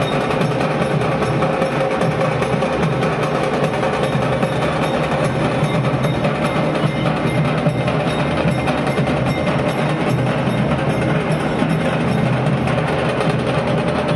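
Procession drumming: fast, steady, continuous percussion with rapid strikes and a ringing metallic edge, kept up without a break.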